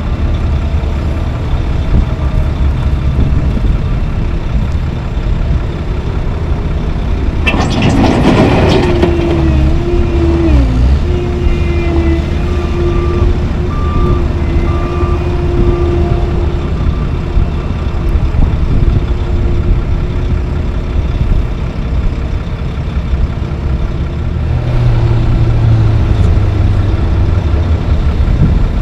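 Heavy diesel engines of a Mack Granite dump truck and a CAT 262C skid steer running during loading of milled asphalt. There is a loud burst of noise about eight seconds in, then a backup alarm beeps a few times. Near the end an engine revs up briefly.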